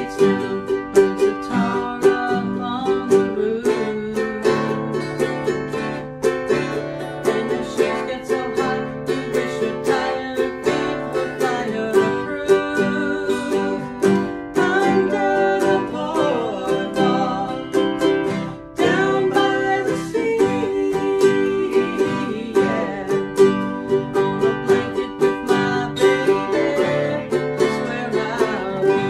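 Ukulele and acoustic guitar strummed together in a steady rhythm.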